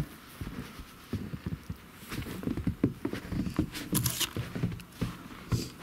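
Boots wading through snow about two feet deep: a run of short, irregular scuffing footsteps.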